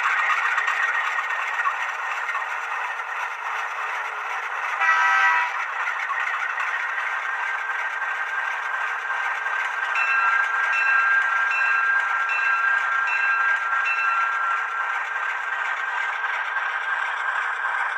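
Sound system of a Rapido model MLW M420 diesel locomotive playing its engine sound through a small speaker, thin with no low end. A short horn-like toot comes about five seconds in, and a pulsing high tone over a steady pitch runs from about ten to fourteen seconds in.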